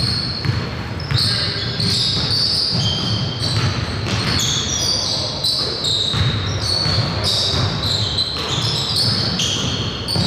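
Basketball game sounds: a ball bouncing on the court amid many short, high-pitched sneaker squeaks, with players' voices calling out.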